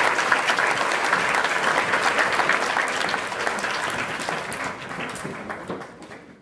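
Audience applause, dense clapping that thins out and fades away over the last few seconds.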